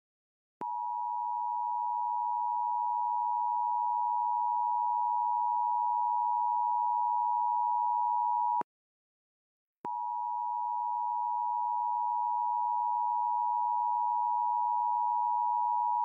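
Emergency Alert System attention signal: a steady two-tone alert sounding just under 1 kHz. It breaks off for about a second around the middle, then resumes.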